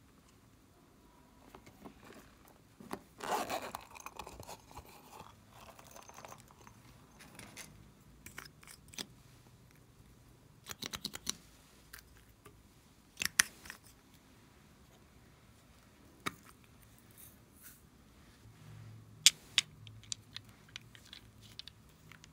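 Close-up handling of small plastic containers and pieces over a glass dish of slime: scattered sharp clicks, taps and rustles, with foam beads and sprinkles poured in.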